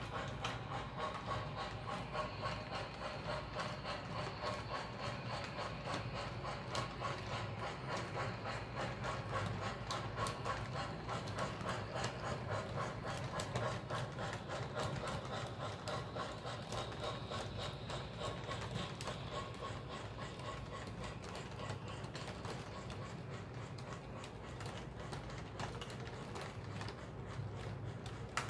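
O gauge model freight train rolling along the track: a dense, rapid clicking of metal wheels over the rail joints, over a steady mechanical hum.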